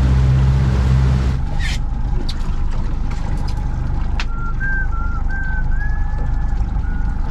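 Steady boat noise: a heavy low rumble that cuts off about a second and a half in, leaving a steady hiss with a few clicks. From a little past the middle, someone whistles a short tune of a handful of notes that step up and down.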